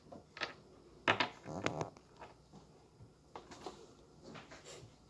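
Handling noise: a few light knocks, clicks and rustles as the phone is gripped and set in place, with a cluster about a second in and more in the second half.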